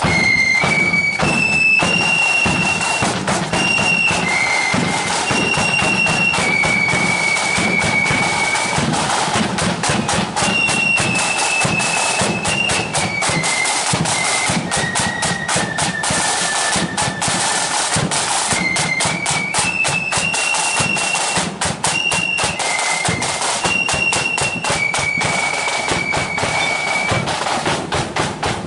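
Marching flute band playing a tune: a line of flutes in unison carrying a high melody of held notes, over rapid side-drum strokes and a bass drum.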